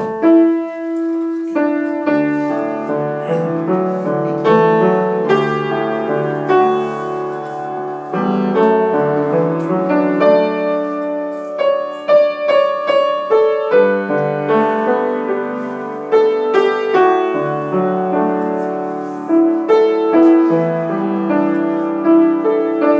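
Solo piano playing the introduction to a Korean art song for soprano: a flowing, lyrical passage of chords and melody with no voice yet.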